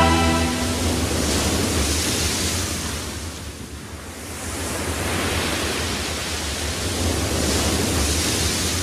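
Sea surf: waves washing in and ebbing away, swelling twice, as the last notes of the music die out in the first second.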